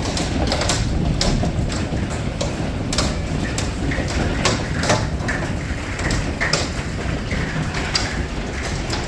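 Hailstones pelting down in heavy rain: a steady roar broken by irregular sharp cracks and knocks, a few a second, as stones strike.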